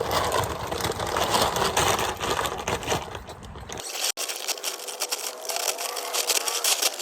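Dry chicken-feed grain pouring from a 40-pound bag into a plastic feed barrel, a continuous rattling hiss of kernels hitting the barrel and each other.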